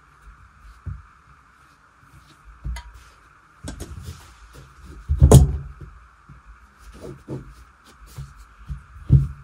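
Tailor's scissors and hands working on blouse fabric on a cutting table: scattered snips, knocks and thumps, the loudest about five seconds in.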